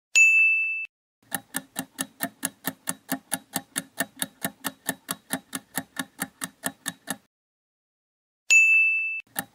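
Quiz countdown sound effect: a clock-style tick repeating steadily at about four ticks a second, bracketed by a bright bell-like ding right at the start and again near the end, each ding marking an answer reveal.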